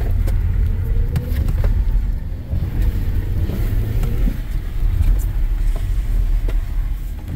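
Inside the cabin of a BMW iX M60 electric SUV driven hard on wet pavement: a steady low rumble of tyres and road, with faint tones rising and falling as the car speeds up and slows, and a few short knocks.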